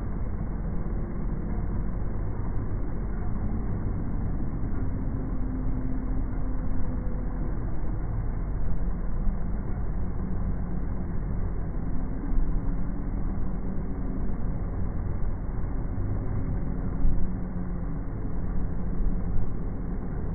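Outdoor sound slowed down by slow-motion playback: a deep, steady rumble with faint, drawn-out tones that waver in pitch.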